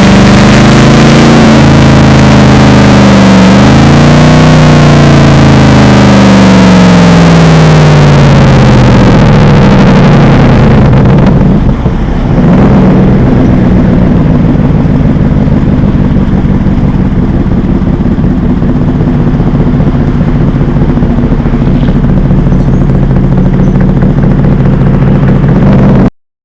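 Mercedes-Benz SLR McLaren's supercharged V8 through an aftermarket Devil Sports exhaust, revved up and let fall back, then settling into a steady idle for the rest of the clip. The sound cuts off suddenly near the end.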